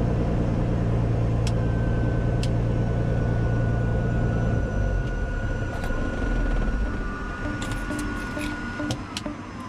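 Steady vehicle noise that starts abruptly: a heavy low rumble with a thin high whine that falls in pitch near the end, and a few sharp clicks.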